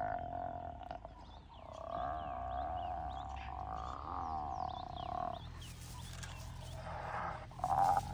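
Spotted hyena's submissive calls to a larger female: a long wavering squeal that breaks off about a second in, then resumes for about four seconds, with a short louder burst near the end. Faint bird chirps sound higher up.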